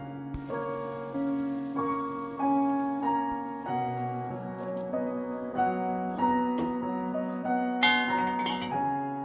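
Background piano music, a gentle melody of sustained notes, with a few sharp clicks about eight seconds in.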